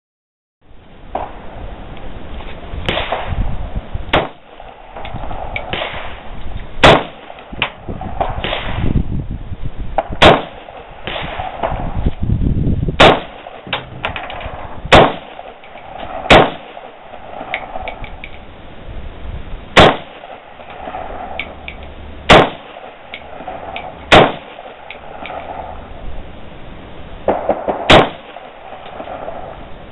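AK-47 rifle fired one shot at a time: about nine loud, sharp cracks, spaced irregularly one and a half to four seconds apart, with low background noise between them.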